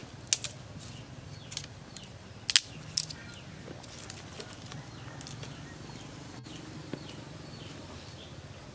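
Dry twigs and sticks clicking and snapping as they are laid between hearth stones: a handful of sharp clicks in the first three seconds and a few fainter ticks later, over a steady low hum.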